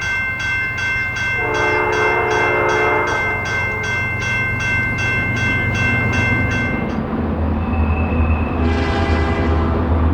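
Steam locomotive CP 2816 blowing its whistle in two blasts, one about a second and a half in lasting over a second and a shorter one near the end, over a low steady rumble from the train. A bell rings rapidly, about three strokes a second, and stops about seven seconds in.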